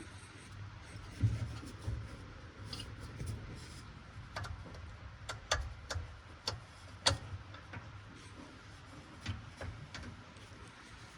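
Irregular metal clicks and taps of hand tools working a stuck alternator mounting bolt loose on a Massey Ferguson 1155 tractor, with some low rubbing and shuffling between them.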